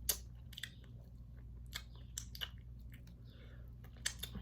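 Close-miked eating of a seafood boil: chewing with scattered sharp, wet clicks and crunches, the loudest right at the start.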